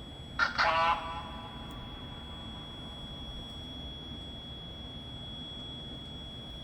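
Ghost-hunting voice box giving a brief, thin, radio-like voice fragment about half a second in, over a steady high-pitched electronic whine and hiss.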